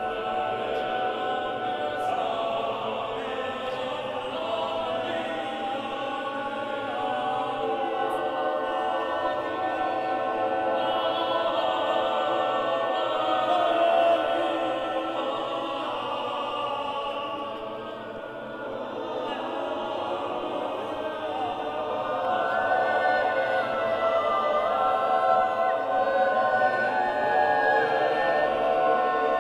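Mixed chamber choir singing a cappella in a large church, long sustained chant-like chords. A little past halfway the sound softens, then it swells again.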